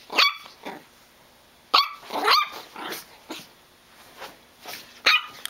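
Chihuahua puppy barking in short, high yips: one just after the start, two close together about two seconds in, and another near the end. They are play barks, given between play bows while she romps.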